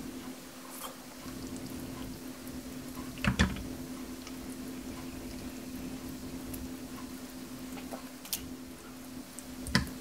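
A few sharp knocks of chopsticks against a frying pan as saucy noodles and a sausage are lifted: the loudest about three seconds in, a lighter one later and another just before the end, over a steady low hum.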